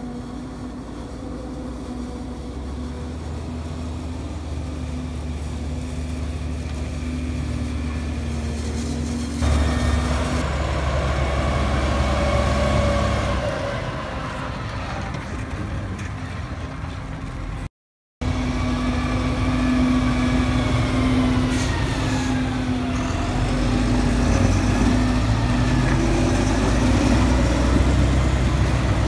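Large Fendt tractors hauling silage trailers, their diesel engines running steadily as they drive. The sound changes abruptly about a third of the way in, then cuts out briefly; in the last part the engine pitch dips and rises again.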